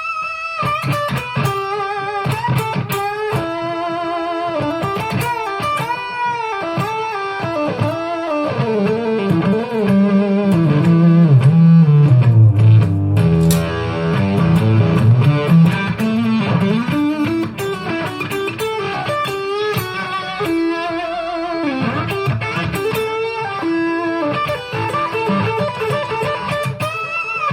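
Electric guitar played through a Zoom G5n multi-effects unit, on an octave-fuzz patch into a Marshall amp simulation. Lead notes are bent and shaken with vibrato. A louder passage of low, bending notes comes about ten to sixteen seconds in.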